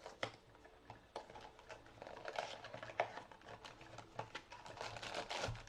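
Small cardboard mystery-mini box handled and opened by hand: scattered light clicks and taps with faint rustling.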